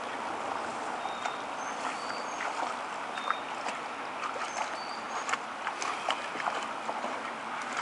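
Shallow creek water running over stones, with irregular small splashes and sloshing as a dog wades and noses in the water, more of them in the second half. A few short, high bird chirps sound above the water.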